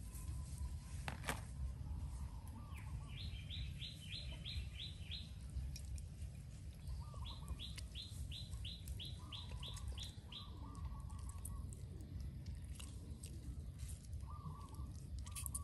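Birds calling: one sings two quick runs of about eight short falling notes, about four a second, while a lower chattering call comes and goes, over a steady low rumble.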